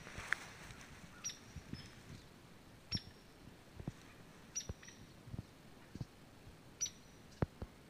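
A small bird repeats a short, sharp, high call about every two seconds, four times. Soft low thumps fall between the calls, and there is a brief rustle near the start.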